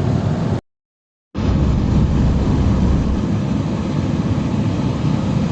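Steady road and engine rumble inside a moving car's cabin, cut by a brief dead-silent dropout about half a second in.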